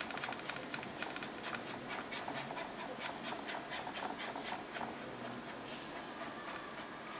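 Paintbrush scrubbing and dabbing oil paint on a scale-model diorama wall close to the microphone, blending the colour in quick repeated scratchy strokes, about five a second, that thin out after about five seconds.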